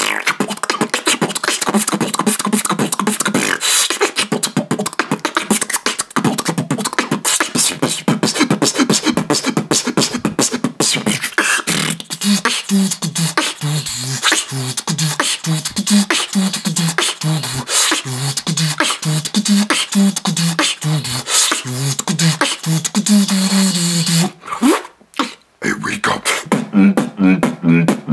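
Solo human beatboxing: a fast, dense stream of mouth-made clicks, snares and hi-hats, joined about halfway through by rhythmic low pitched bass notes in a heavy-bass, dubstep-style routine. A short break near the end before the beat resumes.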